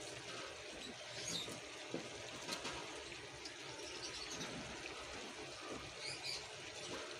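Chicken and broccoli simmering in water in a cooking pot: a faint, steady bubbling with small pops.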